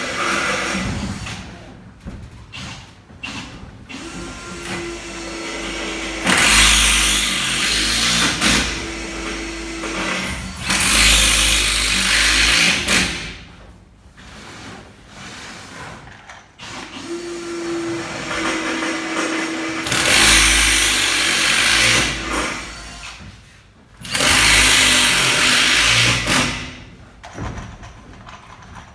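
Cordless drill-driver driving screws down into particleboard floor sheets. It runs up briefly with a steady whine, then goes loud for about two seconds as each screw bites and seats, four times.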